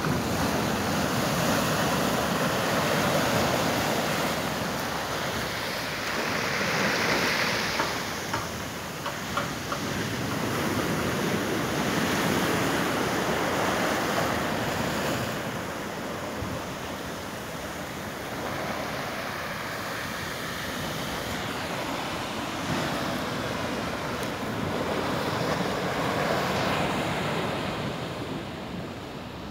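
Atlantic surf breaking on rocks and washing up a sandy beach, swelling and ebbing with each wave.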